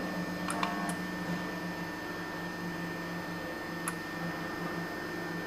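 Ideal LSF004 electric butt welder for conductors humming steadily with a thin copper wire clamped in its jaws for welding. A couple of light clicks come about half a second in, and a single sharp snap about four seconds in.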